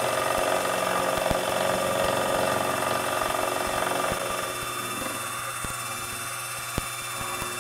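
Sherline vertical mill running, its spindle motor giving a steady whine while a radius-corner end mill plunge-cuts into the vise body, with a few sharp ticks. The cutting noise eases a little after about five seconds.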